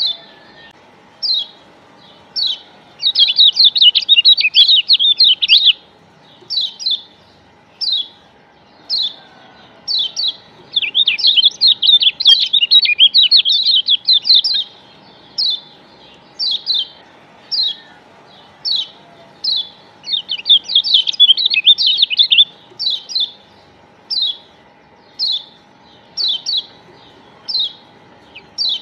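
Kecial kuning (Lombok yellow white-eye) calling: short high chirps about once a second, broken three times by fast twittering runs lasting two to four seconds. A faint steady hum runs underneath.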